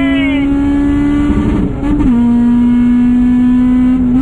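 Supercharged Honda K20 inline-four in a Civic running hard at high revs, heard from inside the cabin: one steady, high engine note that creeps up in pitch, dips briefly about a second and a half in, then holds at a slightly lower pitch.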